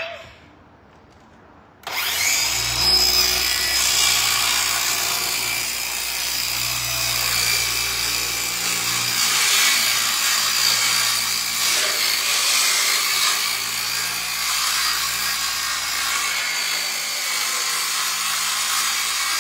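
Ryobi circular saw starting about two seconds in and cutting a long straight line through a thin board panel, running steadily under load.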